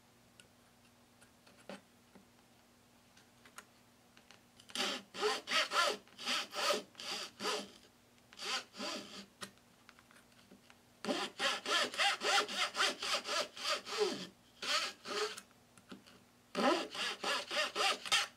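A flat metal file rasping back and forth on the end of a wooden guitar brace, about three short strokes a second. The strokes start about five seconds in and come in four or five runs with brief pauses between. The brace is being trimmed to fit an X-brace joint.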